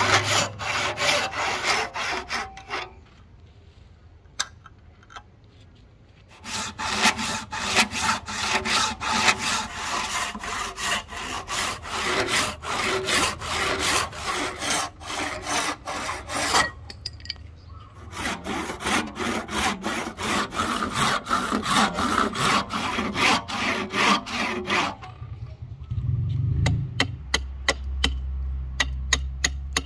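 Hand saw cutting through a rosewood blank clamped in a vise: quick back-and-forth rasping strokes in three runs, with short pauses between them. Near the end the sawing gives way to a quick series of light, sharp chops as a blade notches the wood.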